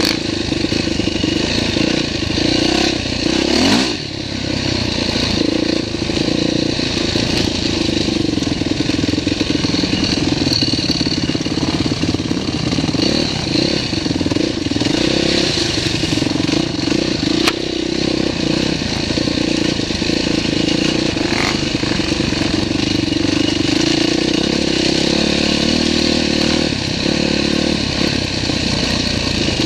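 Dirt bike engine running hard under changing throttle on a rough, rocky trail, heard close up from the riding bike, easing off briefly about four seconds in. A few knocks and clatter from the bike over the stones.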